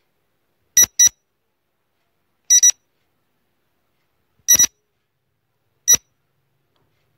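Electronic quiz-timer beeps: four short, high beeps, some doubled, about every one and a half to two seconds, ticking off the answer countdown, with dead silence between them.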